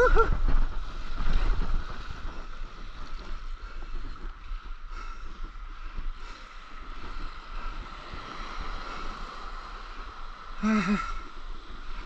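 Water washing and splashing around a stand-up paddleboard and its paddle, with wind buffeting the microphone, strongest at the start. A short pitched call is heard near the end.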